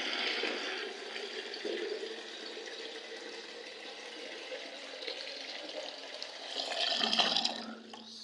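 Water pouring into an electric kettle as it is filled, a steady rush that swells louder near the end and then stops.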